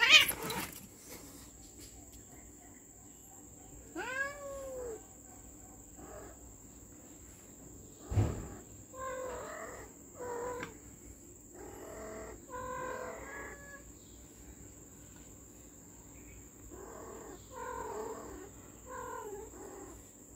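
Cats squabbling: a sharp hiss from a lunging tabby at the start, then one rising-and-falling meow about four seconds in. A low thump comes about eight seconds in, followed by bursts of short calls.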